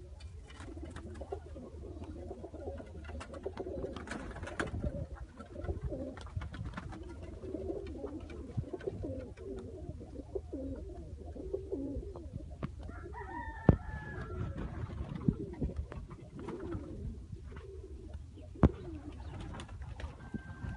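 Several domestic pigeons cooing continuously, their calls overlapping, with two sharp knocks around the middle and later in the stretch.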